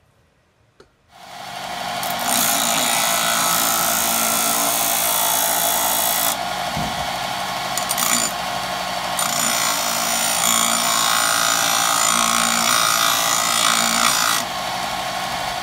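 Bench belt-and-disc sander grinding a steel railroad-spike knife blank against the sanding disc: a loud, steady, harsh grinding noise over the machine's hum. It comes in about a second in, rising over about a second, thins out twice midway and falls away near the end.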